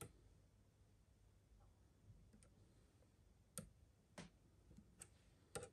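About half a dozen faint, sharp clicks and taps of multimeter probe tips touching the metal terminals of a scooter battery pack, over near silence, with the loudest a quick double click near the end.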